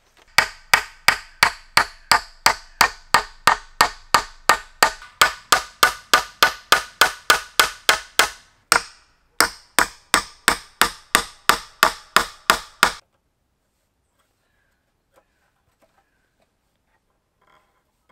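Hammer driving nails through a stick into wooden planks: a steady run of sharp blows, about three a second, with one short break about nine seconds in, stopping about thirteen seconds in.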